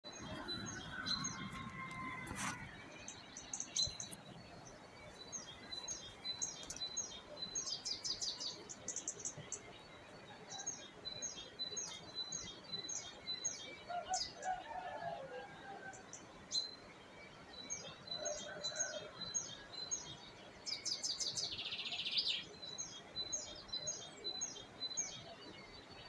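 Dawn chorus of several small songbirds chirping and singing, with quick repeated high notes running throughout and a few lower calls, one of them in the first couple of seconds.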